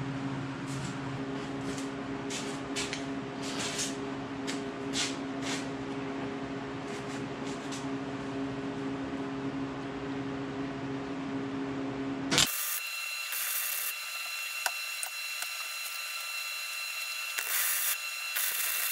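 MIG welder tacking square steel tubing in a series of short crackling bursts over a steady electrical hum. About twelve seconds in the hum cuts out and a steady hiss with thin high tones takes over.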